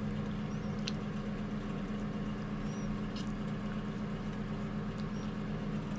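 Steady, unchanging mechanical hum from a running machine, with a few faint clicks.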